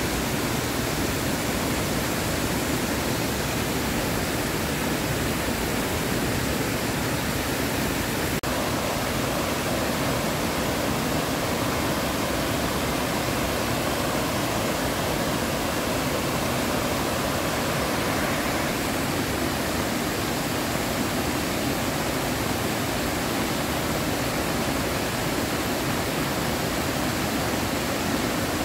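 Heavy rain falling and muddy floodwater rushing across a flooded field: a steady, unbroken hiss and rush of water.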